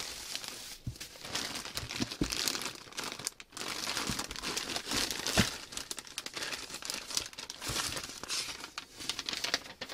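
Bubble wrap and plastic packing bags being handled and pulled out of a cardboard box, crinkling and rustling continuously, with a few light knocks.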